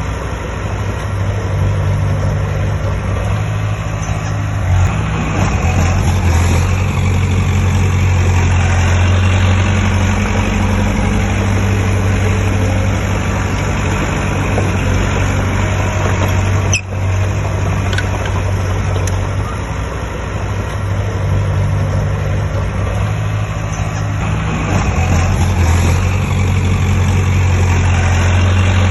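Heavy diesel engine of earthmoving machinery running, its low hum rising and falling in level as the load changes, with a brief break about 17 seconds in.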